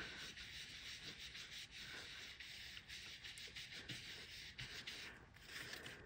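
Faint, soft rubbing of a round blending brush swept in quick repeated strokes over cardstock, working ink into the card's edges.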